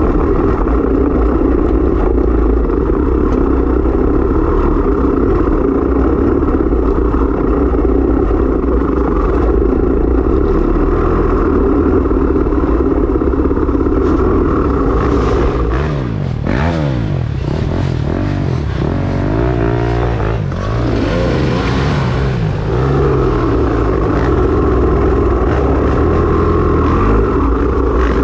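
Dirt bike engine running hard at a steady throttle, then revving up and down repeatedly through a slower stretch about halfway through, before settling back to a steady pull.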